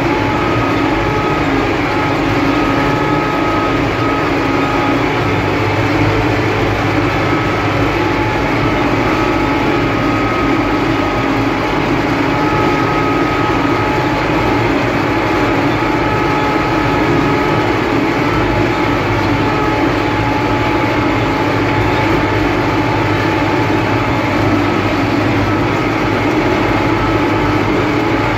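UTB Universal 650 tractor's four-cylinder diesel engine running steadily under load while pulling a combinator (seedbed cultivator), heard from the driver's seat.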